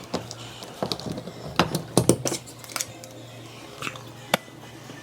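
Irregular sharp clicks and knocks, several close together in the middle and a single one near the end, over background music.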